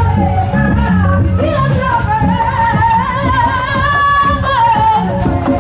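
Loud song with a singing voice over a steady bass beat; the voice holds one long note about four seconds in, then drops.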